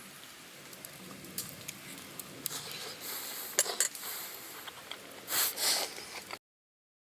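Campfire crackling: a soft hiss with scattered sharp pops and snaps, and two brief louder rustles about five and a half seconds in. The sound cuts off abruptly to dead silence a little after six seconds.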